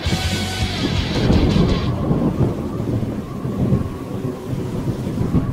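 Thunder rumbling with a rain-like hiss over it; the hiss fades about two seconds in while the low rumble carries on.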